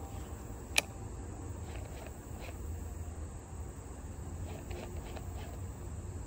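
Steady high-pitched buzz of insects in the summer woods, with a single sharp click just under a second in.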